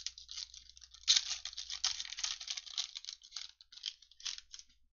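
Foil trading-card pack wrapper crinkling and tearing as it is torn open by hand: a rapid run of crackles from about a second in until near the end.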